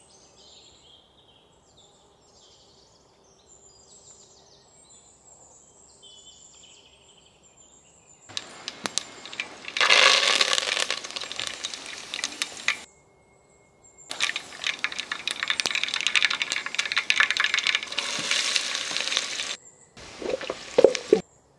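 Hot oil in a steel pot sizzling and spluttering as curry leaves are dropped into a mustard-seed tempering (phodni). The loud crackling starts about eight seconds in and runs in two long stretches, with only faint crackle before it.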